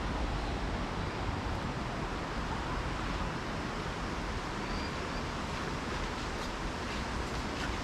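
Steady rushing noise of a river's flowing water.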